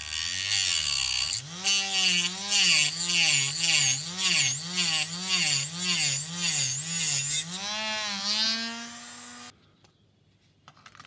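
A small handheld rotary motor tool with a cutting disc sawing through a thick plastic sprue gate on a clear canopy. Its whine wavers up and down about twice a second as the disc bites, with a cutting hiss over it. Near the end the pitch climbs as the tool runs free, then it stops shortly before the end.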